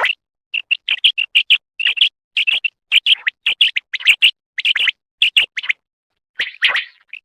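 Common quail (batair) calling: a rapid series of short, sharp, high notes in quick clusters, with a brief pause about six seconds in.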